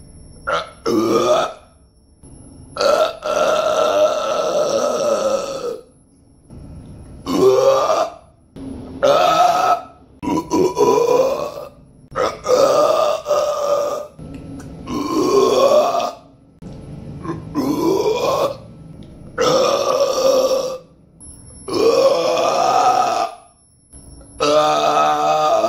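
A man burping again and again: about a dozen long, deep belches with short pauses between. The longest lasts about three seconds near the start, and some rise in pitch as they go.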